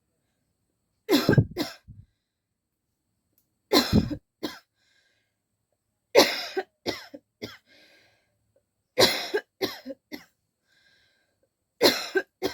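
A person coughing in five short bouts of two to four coughs each, about three seconds apart, with faint breaths between some bouts.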